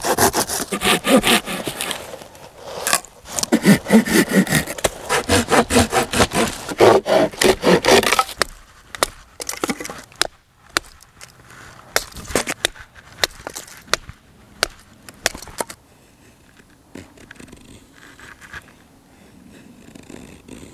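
Cheap no-name hand saw cutting a branch on a stump in quick, even strokes that stop about eight seconds in. A string of sharp wooden knocks and cracks follows. Near the end there is fainter scraping of a Mora Companion knife carving a feather stick.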